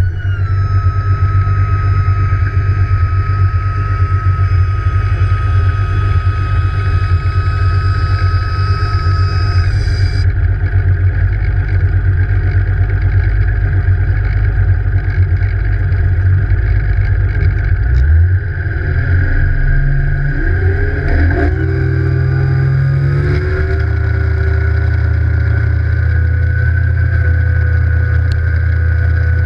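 Evinrude E-TEC G2 150 HO two-stroke outboard running steadily at low speed, with a high steady whine that stops about a third of the way in. About two-thirds in the throttle opens and the pitch climbs over a few seconds, then settles into a steady higher note as the boat gets up on the plane.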